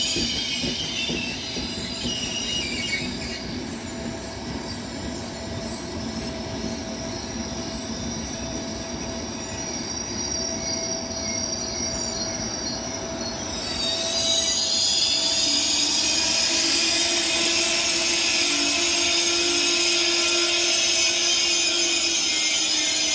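Intercity passenger train's steel wheels squealing on the rails as the coaches roll slowly through the station, several shrill tones at once over a low rumble. The squeal grows louder and higher about two-thirds of the way in.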